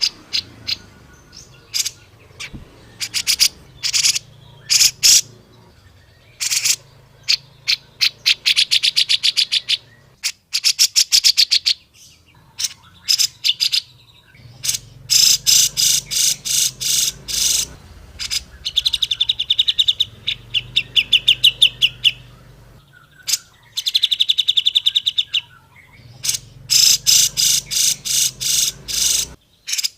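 Grey-cheeked bulbul (cucak jenggot) singing. Repeated runs of rapid, chattering trilled notes, some brief and some lasting a few seconds, with short pauses between them. This is a master song used to stimulate caged birds of the same species to sing.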